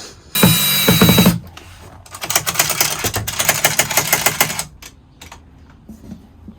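A power tool runs in one short burst of about a second, with a high whine in it. About a second later comes a fast run of mechanical clicks lasting about two and a half seconds.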